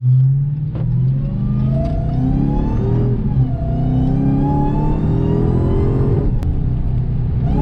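Dodge Charger Hellcat's supercharged 6.2-litre HEMI V8 accelerating, heard inside the cabin. The engine note rises, drops briefly at an upshift about three seconds in, climbs again and levels off near the end.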